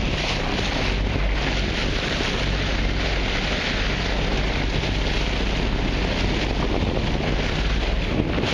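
Steady wind buffeting the microphone, over the hiss of choppy sea water.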